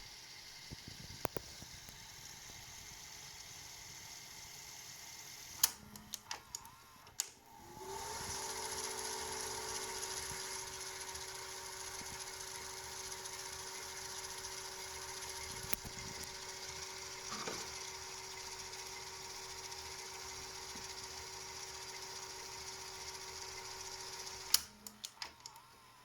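GoldStar R-Q20P VHS video recorder's tape mechanism clicking into place, then its belt-driven drive spinning up with a short rising tone into a steady whir with a few held tones, which runs for about sixteen seconds before more loud clicks as the mechanism stops. The rubber drive belt is worn and no longer fully elastic but still works.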